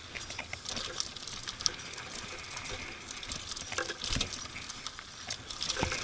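Mountain bike rolling fast down a loose dirt and gravel trail: tyres crunching over stones and the bike rattling over bumps, with many small clicks. A heavier knock comes about four seconds in and another near the end.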